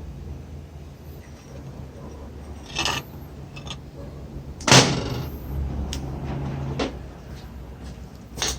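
Metal parts being handled: three sudden knocks or clunks, the loudest about five seconds in, over a low steady hum.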